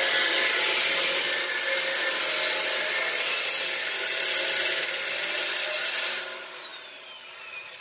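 Angle grinder cutting steel, a harsh grinding whine. About six seconds in it is switched off and the disc's whine falls away as it spins down.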